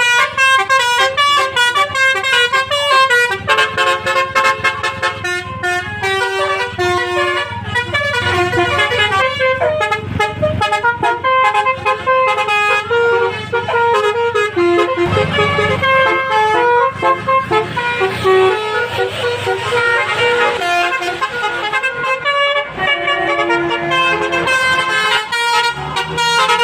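Indonesian 'telolet' bus horns playing quick multi-note tunes, several horns overlapping and changing pitch in steps, with bus engines running underneath.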